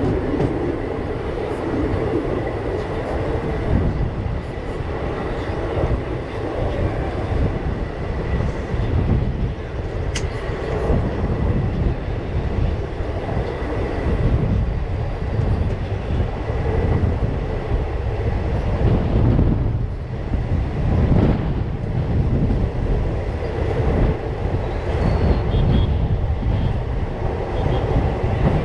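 Steady rumble and wheel clatter of a passenger train coach running at speed, heard from its open doorway.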